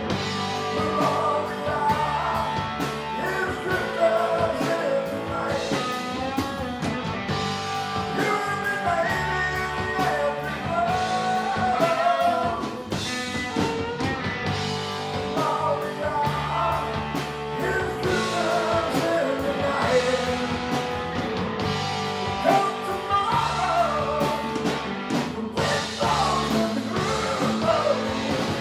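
Live rock band: lead vocals over guitar accompaniment.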